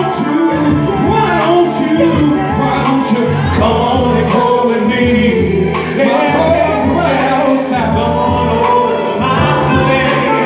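A male vocal group singing live through microphones, over music with a steady beat and a sustained bass line.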